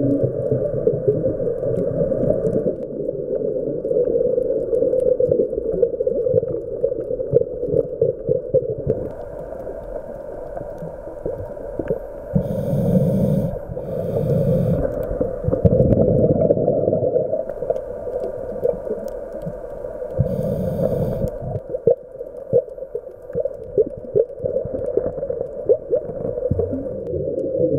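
Underwater sound picked up by a diver's camera: a steady low rumble, with a scuba diver's regulator breathing and bubbles twice around the middle and once about three quarters of the way in.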